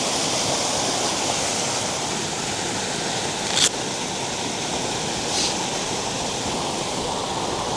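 Waterfall rushing steadily, with a short sharp click about halfway through and a fainter one a couple of seconds later.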